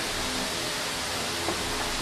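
Steady hum and hiss of a pneumatic piston filling machine standing between fill strokes, with a faint click about one and a half seconds in.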